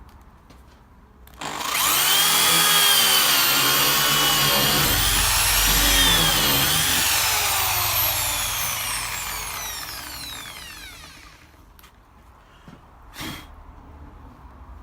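Bosch drill in a drill stand boring a 35 mm concealed-hinge cup hole into a door with a hinge boring bit: the motor starts about a second and a half in and runs loud while the bit cuts, its pitch wavering under load, then its whine falls steadily as it spins down after the cut. A short knock follows near the end.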